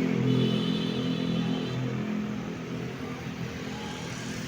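Intercity bus diesel engine running as the bus moves in, its steady low drone getting quieter.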